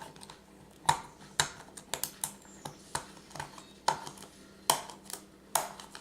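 Irregular light clicks and taps, one or two a second, of small plastic supply containers such as glitter pots and a glue bottle being handled and set down on a hard surface.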